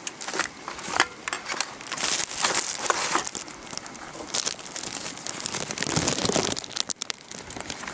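Skunk rummaging through trash in a garbage can, crinkling and rustling paper plates and food wrappers with irregular crackles and light knocks as it feeds on leftovers.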